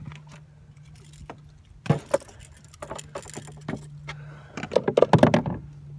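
Scattered knocks and metallic clinks as the hook and lure are worked free of a landed crevalle jack, building to a quick flurry of loud knocking about five seconds in. Under it runs the boat motor's steady low hum.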